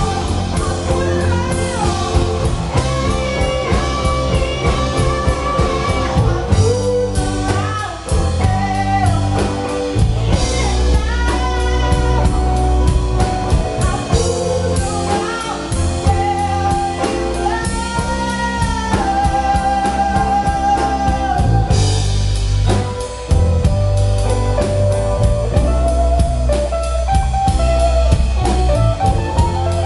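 Live band playing: a woman singing lead over electric bass, guitars and a drum kit with a steady beat.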